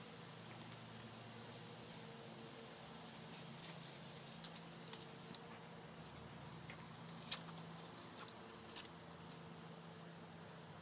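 Faint scattered ticks and scuffles from Havanese puppies playing on brick pavers, over a steady low hum.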